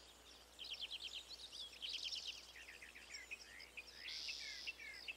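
Faint birdsong ambience: several bursts of quick, falling chirps, with a short buzzy trill about four seconds in.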